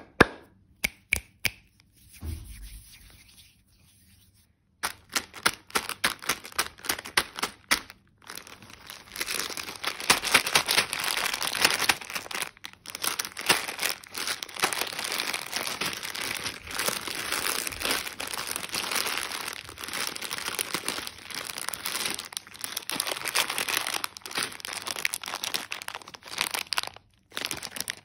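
Plastic M&M's candy packets crinkling and rustling as hands squeeze and handle them, dense and continuous from about eight seconds in. Before that comes a run of quick, sharp taps and clicks, about five a second for a few seconds.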